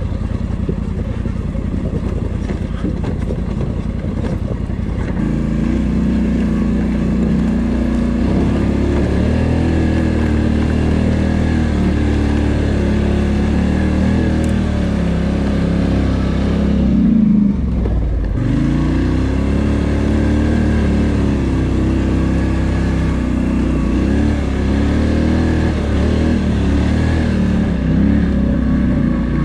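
2019 Polaris Sportsman XP 1000 ATV's twin-cylinder engine running under throttle while riding, its pitch rising and falling as the throttle is worked. About seventeen seconds in it drops off briefly, then revs back up.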